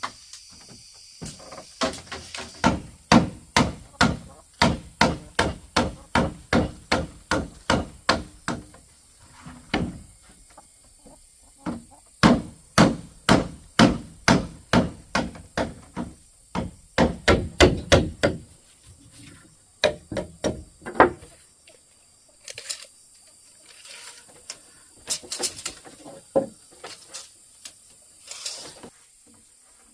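Rapid, evenly spaced blows of a hand tool on wood or bamboo, about two to three a second in two long runs, then a few scattered strikes. Insects buzz steadily behind.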